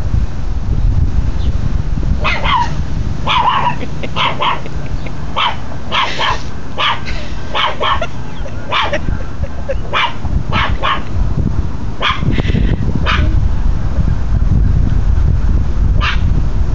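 Chihuahua puppy alert-barking at neighbours: runs of short, sharp, high barks, about two dozen in all, bunched through the middle with a pause and a single bark near the end. A steady low rumble runs underneath.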